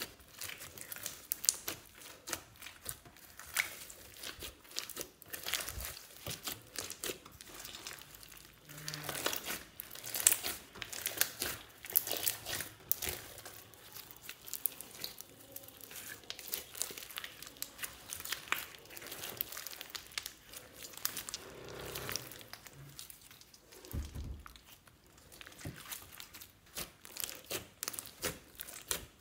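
Hands squeezing and kneading clear slime packed with beads, sequins and kinetic sand, giving a steady run of irregular crackles and clicks.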